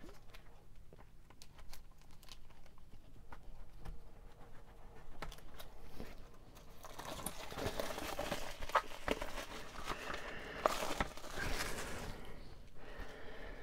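Plastic shrink-wrap being torn open and peeled off a card storage binder: scattered small crackles and taps at first, then about halfway through a dense stretch of crinkling and tearing with a few sharp snaps.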